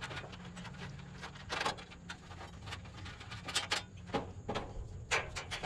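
Irregular knocks, clicks and rustling from fan-motor wires and conduit being pulled and handled against a heat pump's outdoor unit, a handful of sharper knocks among them.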